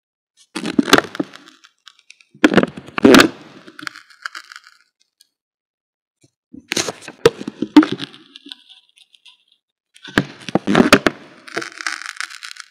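Crackling and scratching of a ballpoint pen writing on a hand-held sheet of lined paper, the paper flexing under the pen. It comes in four loud bursts of a second or so each, with silent pauses between them.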